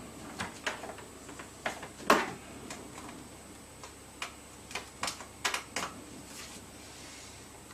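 Irregular light plastic clicks and taps from handling an HDMI cable and plugging its connector in, about fifteen over six seconds, the loudest a little after two seconds in.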